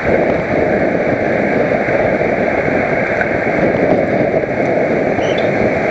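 Wind rushing over a helmet-mounted camera's microphone as a road cyclist rides at race speed: a loud, steady rush.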